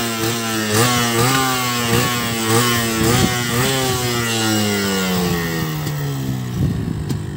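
Yamaha RX 135's two-stroke single-cylinder engine being revved in neutral: quick throttle blips, a little under two a second, each rev jumping up and falling back. After about four seconds the revs sink slowly back down.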